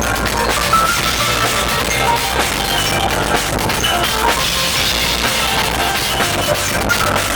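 Music with a steady drum-kit beat, bass drum and snare to the fore.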